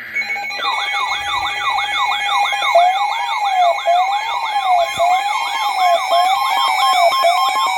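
Several electronic siren tones layered together as an emergency-alert sound: a fast yelp cycling about three times a second over a slower wail that rises and falls about once a second, with steady high tones beneath. It is the alarm that leads into a severe thunderstorm warning broadcast.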